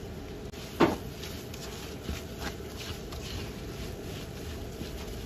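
Plastic spatula stirring thick chili-and-dried-shrimp sambal in a non-stick frying pan: soft scraping, with one sharp knock against the pan about a second in and a few light taps after.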